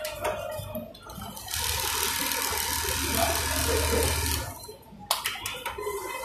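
JACK automatic pattern sewing machine running, its needle head stitching along a plastic template with a steady hum and hiss. The sound drops away briefly about four and a half seconds in, then a sharp click follows.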